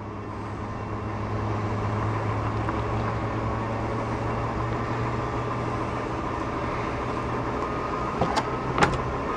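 Electric-hydraulic power convertible top of a 1963 Ford Falcon Futura running as the top goes up: a steady motor-pump hum that swells as it starts, with a couple of clicks near the end.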